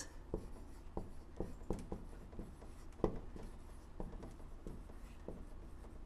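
Dry-erase marker writing on a whiteboard: faint, irregular strokes and light ticks of the felt tip against the board.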